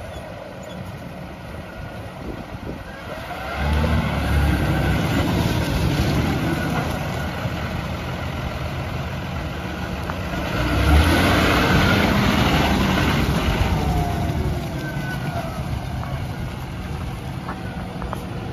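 John Deere 6150R tractor's six-cylinder diesel engine running as the tractor drives around. It grows louder about three and a half seconds in, and again about halfway through as the tractor comes close.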